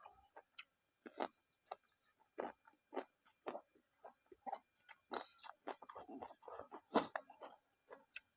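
A person chewing and eating red ant egg salad: irregular wet mouth clicks, smacks and soft crunches, close to the microphone.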